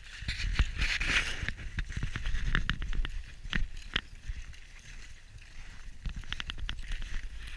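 Footsteps crunching in packed snow, with a string of sharp crunches and clicks and a quick run of them near the end, over a low rumble of wind or handling noise on the microphone.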